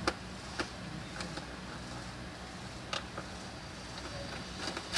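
A few sharp, separate clicks and taps of a screwdriver working loose the bottom-case screws of an Asus X507UF laptop, spread irregularly over the few seconds, over a faint steady hum.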